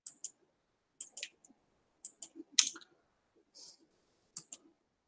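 Sparse clicking at a computer: short sharp clicks about once a second, several in quick pairs, as keys or buttons are pressed.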